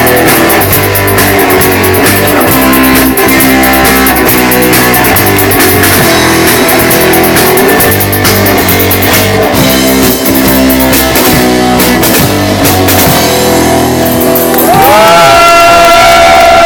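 Live rock band playing an instrumental passage with electric guitar, bass and drum kit, without vocals. Near the end the band hits a long held chord that rings on steadily, closing the song.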